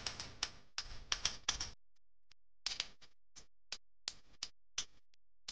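A run of light, sharp clicks and taps: a quick flurry in the first second and a half, then, after a short pause, single clicks spaced irregularly a few per second.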